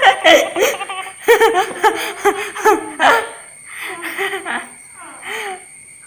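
Children laughing and giggling in short bursts, loudest in the first three seconds or so and trailing off toward the end.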